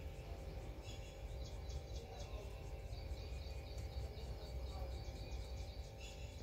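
Rose-ringed parakeet making a quick run of soft, high clicking ticks, about four a second, while eating chapati, over a steady low rumble.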